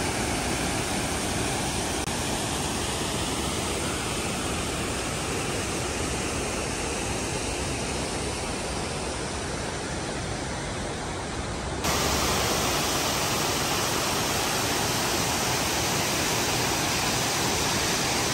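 Steady rushing of a glacial mountain river flowing fast. It steps up a little louder abruptly about 12 seconds in.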